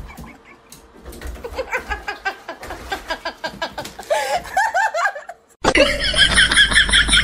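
A person laughing in short repeated bursts. About five and a half seconds in it cuts off, and a golden retriever starts howling, louder, with a wavering high pitch.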